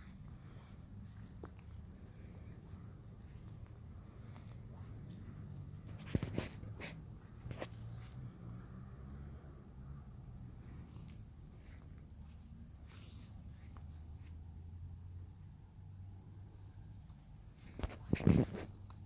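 Insects giving a steady, unbroken high trill, with a low rumble underneath and a few scattered knocks, the loudest just before the end.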